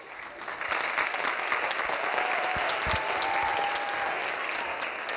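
Audience applauding, building up about half a second in and then clapping steadily.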